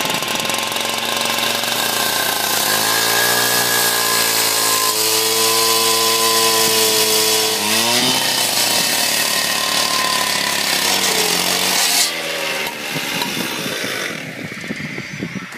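Two-stroke concrete cut-off saw cutting through masonry with its abrasive blade. The engine pitch sags and recovers a few times under the load of the cut. About twelve seconds in the cut ends and the saw drops back toward idle.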